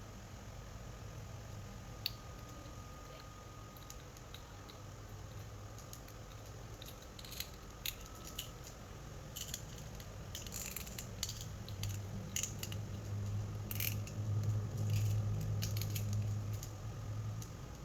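Plastic action-figure parts and packaging being handled: scattered small sharp clicks and rustles, coming more often in the second half, over a low hum that grows louder after about twelve seconds.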